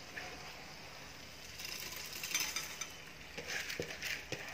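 Soaked basmati rice being tipped off a steel spoon into a steel pressure cooker of masala: a soft wet rustle, then a few light clicks and knocks of the spoon against the pot near the end.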